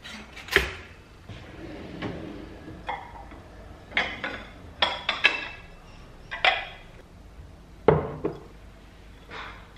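Ceramic bowls and plates clinking and knocking as they are handled and set down: about nine sharp clinks, a few of them ringing briefly.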